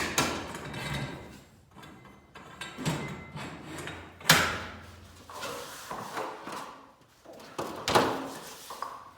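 Metal garage door hardware being handled and fitted: scraping and clattering as aluminium cable drums go onto the torsion tube, with two sharp knocks, about four and eight seconds in.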